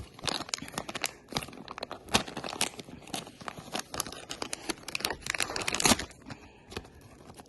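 Plastic packaging of an OdorTrap pack crinkling and tearing as it is handled and opened, in irregular crackles, with a denser burst of rustling about five seconds in.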